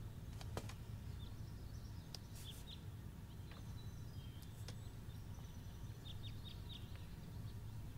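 Faint background ambience: a steady low hum with a few scattered faint bird chirps, including a quick run of four chirps about six seconds in.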